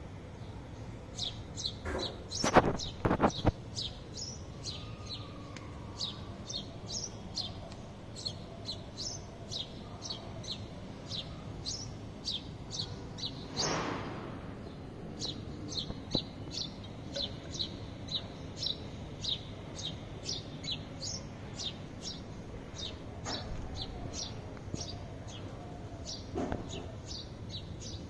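Sparrows chirping, short high chirps repeating about twice a second without a break. A few loud, sharp knocks come about three seconds in, and a brief rushing noise near the middle.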